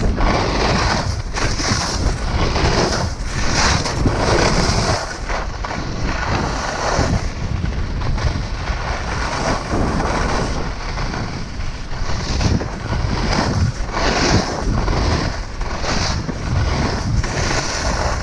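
Wind rushing over a chest-mounted GoPro's microphone while skis scrape and hiss across groomed snow, the hiss swelling and fading about once a second or two.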